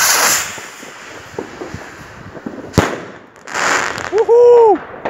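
Consumer fireworks going off: a loud rushing launch at the start, a single sharp bang a little under three seconds in, another rush of noise, then a short loud tone that rises, holds and falls near the end.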